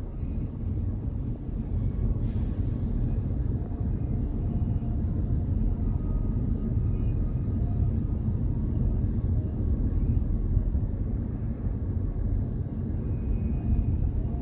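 Steady road and engine rumble of a car driving along at speed, heard from inside the cabin.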